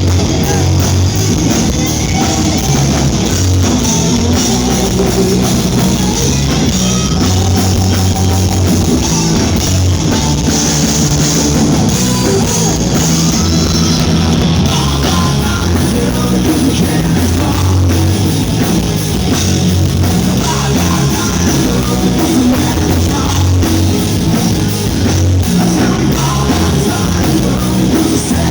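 Live rock band playing loud and without a break: drum kit, guitars and a singer.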